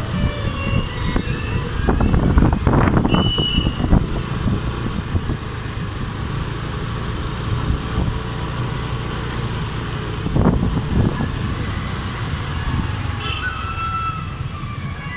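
Road traffic: motor scooters and motorcycles passing close by over a steady low rumble, louder as vehicles go past at about two to four seconds in and again about ten seconds in, with a few brief high tones.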